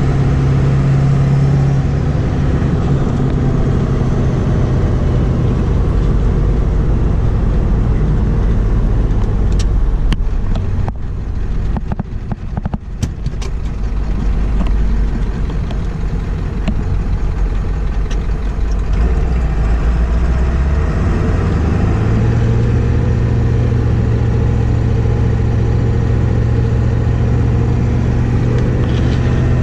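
Ford 7.3 Powerstroke turbo-diesel V8, fitted with 160cc/30% over injectors, running under way as the truck is driven. The engine note drops lower a couple of seconds in and dips quieter for a moment near the middle, then climbs steadily in pitch over the last third.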